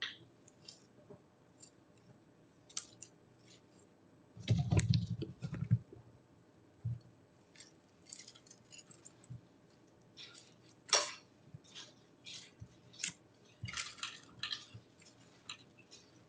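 Scattered small clicks and rustles of guinea pigs moving and nibbling in their cage, with a louder, low rustling thump about four and a half seconds in.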